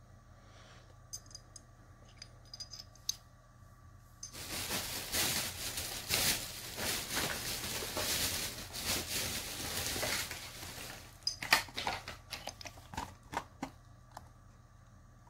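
Handling of a cast-metal puzzle and its packaging: a few light metal clicks, then about seven seconds of rustling and scraping, then a quick run of sharp clicks.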